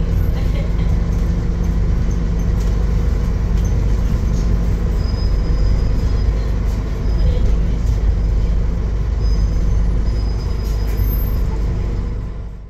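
Interior noise of a Scania N230UD double-decker bus on the move, heard from the lower deck: its five-cylinder diesel engine and driveline give a steady low rumble, with a faint high whine over it. It fades out near the end.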